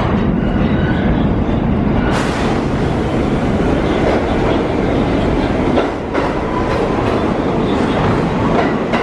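New York City subway train of R46 cars running, a steady loud rumble with the wheels clattering over the rail joints.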